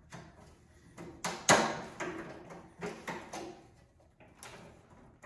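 A bolt holding a snowblower skid shoe being tightened with a hand tool: irregular clicks and knocks of metal against the plastic housing, the loudest about a second and a half in.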